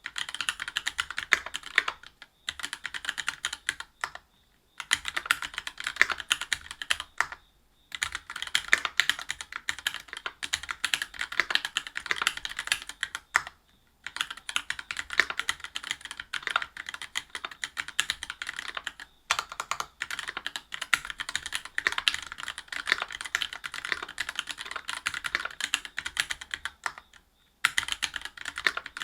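Continuous fast typing on a Whale 75 mechanical keyboard with stock Gateron Milky Yellow Pro linear switches, a brass plate and GMK keycaps: a dense patter of keystrokes, broken by short pauses every few seconds.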